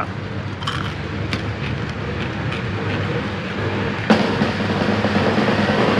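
A motor vehicle's engine running on the street close by: a steady low rumble that slowly grows louder, with a sharp click about four seconds in.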